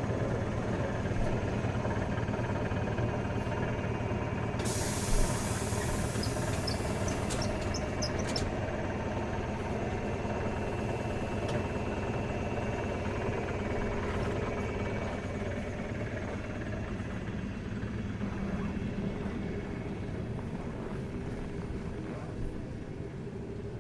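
A train at the platform humming steadily. About five seconds in it gives a sharp hiss of released air lasting roughly four seconds, with a thump at its start. The hum then slowly fades.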